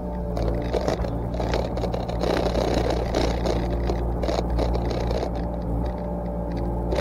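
Yanmar SV40 mini excavator's diesel engine running steadily, with irregular scraping and cracking of brush and wood being cleared.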